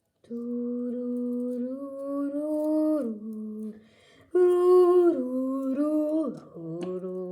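A woman humming a short tune in two phrases of held notes that step up and down in pitch, with a brief pause between them.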